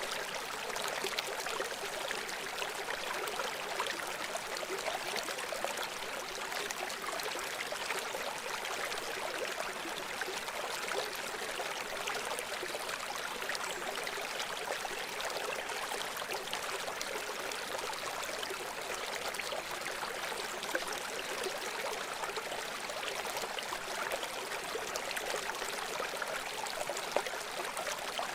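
River water running over stones, a steady rushing babble with fine splashing and gurgling.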